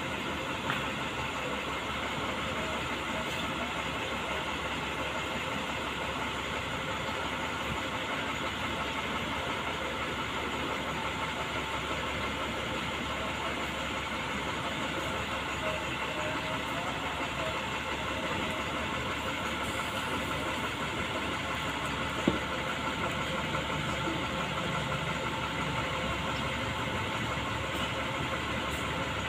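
Diesel engine running steadily at low revs, an even drone, while ballast hopper wagons move slowly along the track. One sharp click about 22 seconds in.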